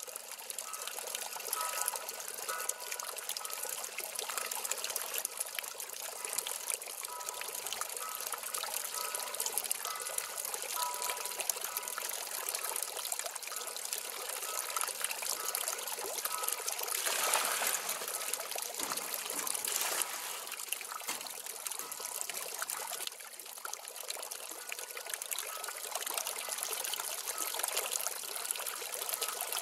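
A stream of water pouring from a spout into a metal fountain bowl, splashing and trickling steadily, briefly a little louder about halfway through.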